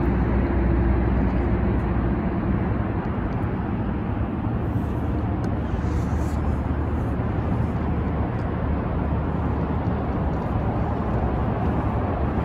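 A fishing boat's motor running steadily, a low hum under an even wash of noise, as the boat trolls with lines out.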